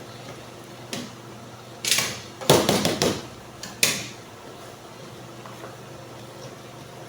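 A few knocks and a clatter of a cooking pot and utensils as chopped okra is added to a pot of soup, loudest about two and a half seconds in, followed by a faint steady hiss.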